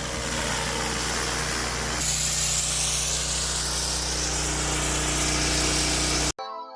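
Gas pressure washer, a Honda GX390 engine, running steadily under a loud hiss of high-pressure water spray, with a cut to a second take about two seconds in. It stops abruptly near the end and gives way to music.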